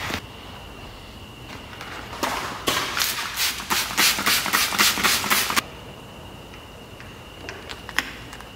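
Trigger spray bottle misting a boat's hull for a wet decal install: a quick run of about a dozen sprays, roughly three a second, lasting about three seconds.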